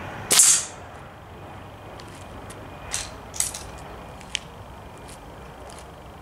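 An air rifle shot at a steel Warsaw Pact helmet: one sharp crack of the shot and the pellet strike about half a second in. A few fainter clicks and a short ping follow between about three and four and a half seconds in.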